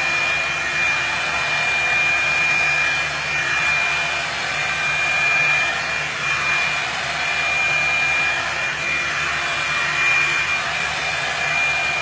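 Revlon blow dryer brush running steadily: a fan-and-air rush with a thin, steady high whine.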